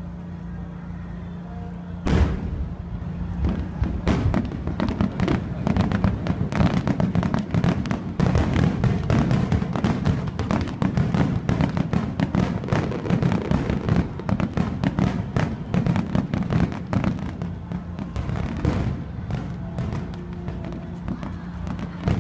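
Fireworks going off: a dense, irregular run of bangs and crackles starts about two seconds in and thins out near the end, over a low steady hum.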